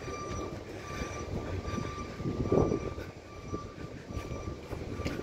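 Street traffic rumble with a high, thin mechanical whine that keeps breaking off and coming back. A louder swell passes about two and a half seconds in.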